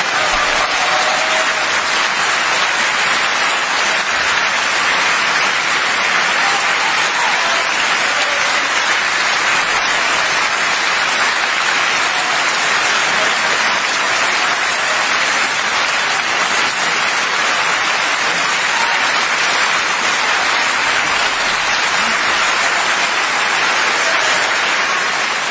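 Audience applauding steadily, a dense, even clapping at the end of a performance.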